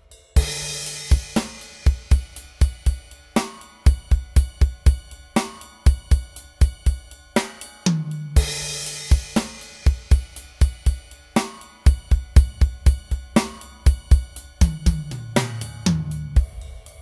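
Backing music with a steady drum-kit beat of kick drum, snare and hi-hat over a bass line, with a cymbal crash just after the start and again about halfway through.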